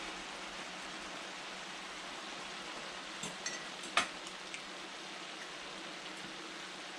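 Diced potatoes, carrots and ground meat frying in a large skillet, sizzling steadily, with a few light clicks and one sharp tap about four seconds in.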